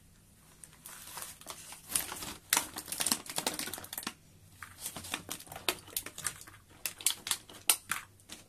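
Plastic toy train cars and track sections being handled and pulled out of a polystyrene foam packing tray: irregular clicks, taps and scrapes, densest about two and a half to four seconds in.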